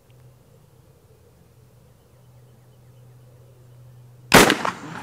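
Mauser Model 71/84 rifle in 11mm Mauser firing a single shot about four seconds in: one sharp, loud report followed by its echo.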